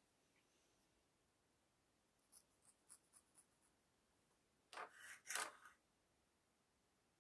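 Mostly near silence, with a few faint ticks and then, about five seconds in, a short scratchy rub in two parts: hands and a felting needle working wool on a foam felting pad.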